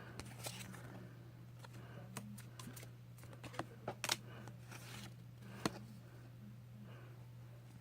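Magic: The Gathering trading cards being handled and flicked through, an irregular scatter of light clicks and snaps with a couple of sharper ones in the middle, over a steady low hum.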